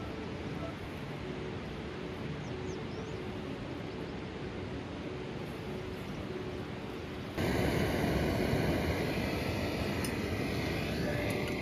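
Steady rushing noise with faint music notes under it; about seven seconds in it cuts abruptly to a louder, fuller rush.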